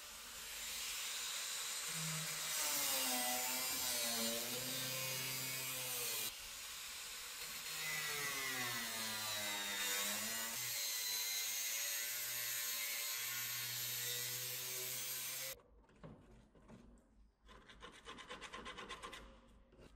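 Pneumatic air cutoff tool with a 3.5-inch abrasive disc cutting through rusted sheet-steel sill. Its whine dips and recovers in pitch as the disc bites into the metal. It stops suddenly about three quarters of the way through.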